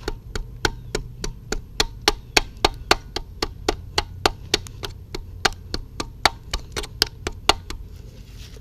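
Ratchet wrench clicking on a bolt: an even run of sharp clicks, about three or four a second, that stops shortly before the end.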